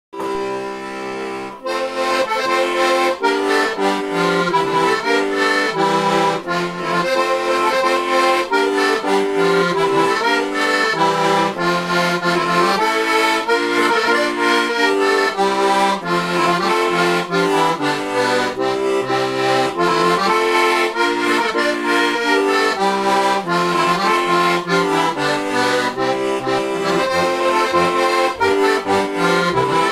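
Heligónka, a Slovak diatonic button accordion tuned in C–F with four-voice hand-made reeds and brass bass reeds, playing a lively folk tune. It opens with a softer held chord for about a second and a half, then the melody runs over bass and chord accompaniment.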